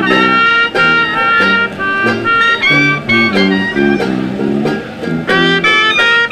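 Instrumental background music: a brisk tune of short, quickly changing notes over a moving lower line.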